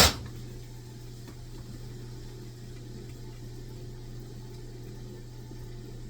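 A metal pot clanks at the very start, then a steady low hum with a faint hiss of background noise.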